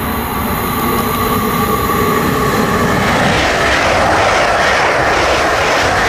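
ICE high-speed electric train approaching and passing at speed: a steady rush of air and wheel noise that swells about three seconds in as the train draws level and goes by.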